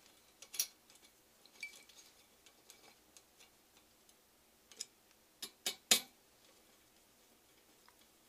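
A screwdriver tightening the screws of the metal AMD mounting clip on a CPU tower cooler, giving scattered light metal clicks and ticks. About five and a half seconds in come three sharper clicks in quick succession, the last the loudest.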